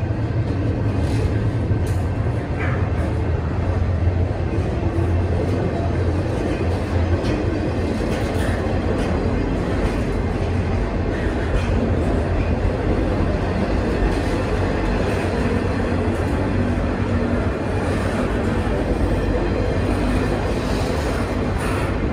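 Union Pacific double-stack intermodal train's well cars rolling past close by: a steady rumble of steel wheels on the rails, with a few sharp knocks.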